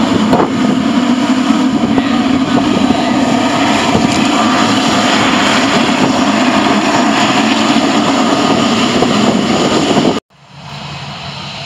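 Boeing 777 jet engines running steadily as the airliner taxis past close by. The sound cuts off suddenly near the end, leaving a much quieter, steady background.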